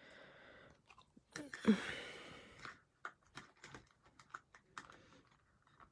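Small plastic clicks and taps from a clear plastic doll stand being pushed together and a doll being fitted onto it, with soft breaths in the first three seconds.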